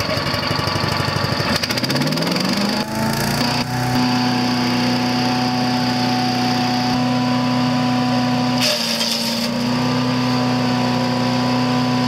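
Predator 212cc single-cylinder engine on a Harbor Freight chipper shredder idling with an uneven pulsing beat, then revving up over about two seconds to a steady high full-throttle run. About nine seconds in the running sound briefly roughens with a short burst of hiss before settling again.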